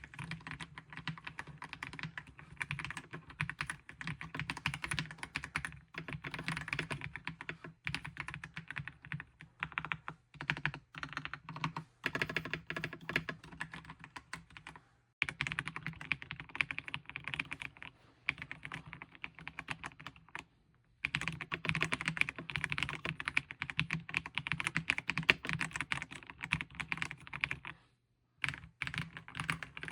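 Fast typing on an Attack Shark X85 PRO, a 75% gasket-mounted aluminium mechanical keyboard with sound-dampening foam. Dense runs of key clicks break off in several short pauses.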